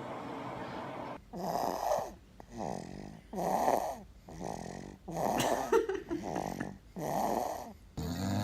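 A man snoring, starting about a second in: four loud snores come roughly every second and a half to two seconds, with quieter breaths between them.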